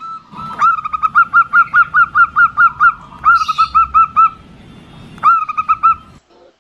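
Local female zebra dove (perkutut) calling in three quick runs of short, clipped coos, about six a second, with brief pauses between runs. This is the female call used to lure male perkutut into singing.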